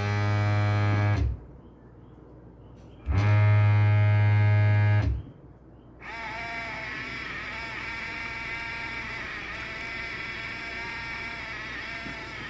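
A loud, steady, low electric hum that cuts off about a second in, comes back for about two seconds, and stops again. After that comes a fainter, continuous sound with wavering tones.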